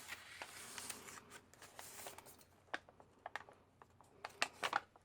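Faint handling of paper journal pieces: a soft rustle of paper sliding for about two seconds, then a scatter of short, crisp paper clicks and crinkles.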